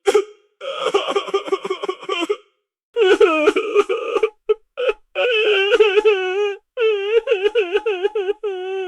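A person crying in a high-pitched voice: wavering wails and whimpers in bursts of a second or two, broken by short pauses, with quick catching sobs about a second in.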